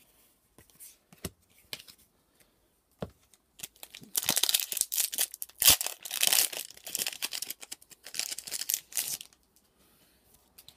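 Foil wrapper of a Magic: The Gathering booster pack being torn open and crinkled: a loud crackle of about five seconds starting about four seconds in, after a few light taps.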